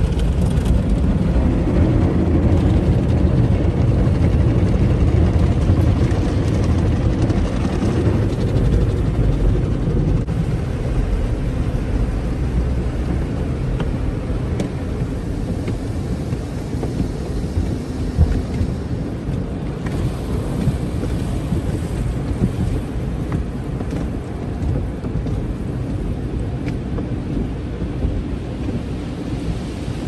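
Car wash running: water spraying and drumming over a steady low rumble, with one sharp knock about eighteen seconds in.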